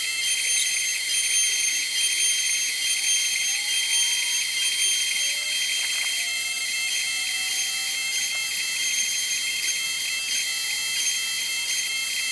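LUNYEE 3018 Pro Ultra desktop CNC router running: a steady high-pitched whine, with an even pulsing pattern setting in about halfway through.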